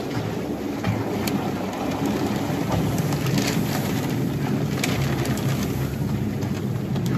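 Steady churning of a calf-milk mixing tank, its agitator motor running and stirring the liquid while milk-replacer powder is poured in from a paper sack, with a few sharp crackles from the sack.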